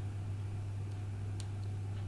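Steady low hum with one faint, sharp tick about one and a half seconds in.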